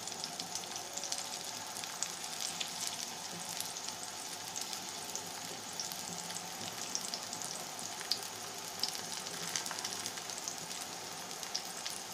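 Besan (gram-flour) batter frying in a little oil on a tawa: a steady sizzle dotted with small crackles and pops.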